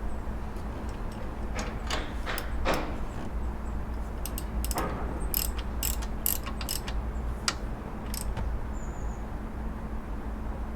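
Socket ratchet clicking in short, irregular runs as the locking nut under the alternator belt tensioner is tightened, with a few louder clicks of metal on metal, over a steady low hum.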